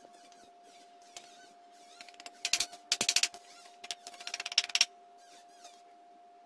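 A large steel knife scraping and shaving a thin bamboo strip against a wooden block: two runs of quick, rasping strokes between about two and five seconds in, with a faint steady hum underneath.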